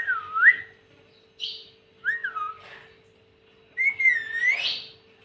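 Pet parrot whistling three separate sliding whistles: one that rises, dips and rises again, a shorter falling one about two seconds in, and a longer one near the end that dips and then climbs high, with a brief chirp between the first two.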